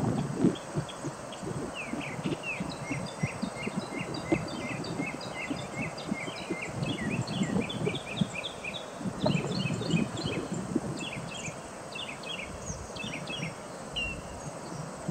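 Gusty wind buffeting the microphone, with a dense run of many short, high bird chirps from about two seconds in until near the end.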